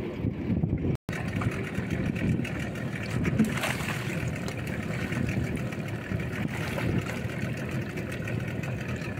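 Speedboat's outboard motor idling, a steady low rumble, with water splashing about three and a half seconds in as a snorkeler wades beside the hull.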